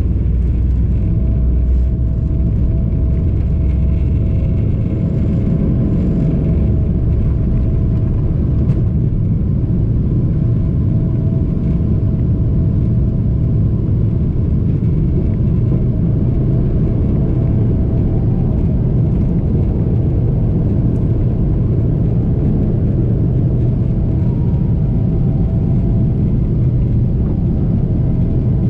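Cabin noise of a Boeing 777-300ER on its takeoff run and climb-out, heard from a seat over the wing: its GE90 engines running at takeoff thrust as a loud, steady rumble with a thin steady whine. The deepest runway rumble eases a few seconds in as the airliner lifts off.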